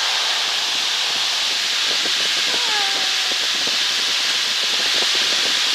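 Steady rushing noise of a light aircraft's engine at takeoff power and the airflow, heard inside the cockpit during the takeoff roll, with faint knocks from the runway.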